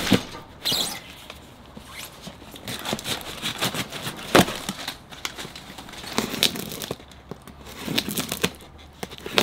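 Packing tape being picked at and torn on a heavily taped cardboard box, with scattered rustles and taps of cardboard and paper. A sharp knock about four seconds in is the loudest sound.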